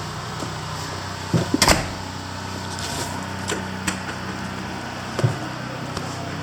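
A few sharp knocks and clicks over a steady low hum, the loudest a knock about a second and a half in, with smaller clicks later.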